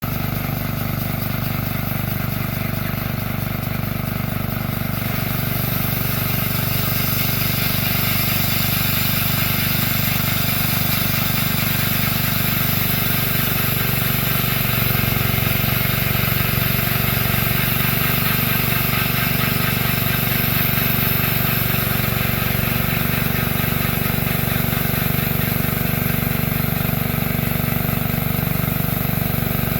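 Homemade bandsaw mill running steadily on a small engine, with a brighter high hiss joining about five seconds in.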